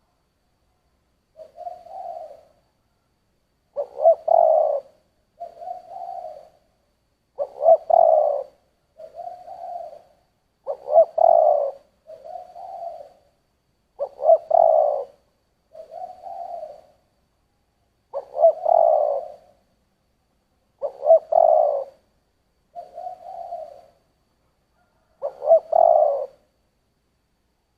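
Spotted dove (cu gáy) cooing in the deep 'thổ' voice: repeated low coo phrases every few seconds, each louder phrase followed by a shorter, softer one.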